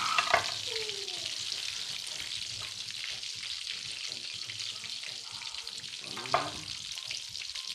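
Breaded cordon bleu frying in hot peanut oil, a steady sizzle. Two brief louder sounds stand out over it, about a third of a second in and near the end.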